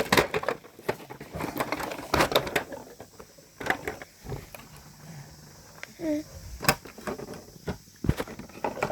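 Toys being handled: scattered clicks and knocks, with a brief squeak about six seconds in.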